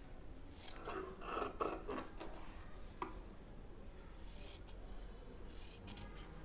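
Large tailor's scissors cutting through fabric: several short runs of snipping and slicing, each a second or less, spread through a few seconds.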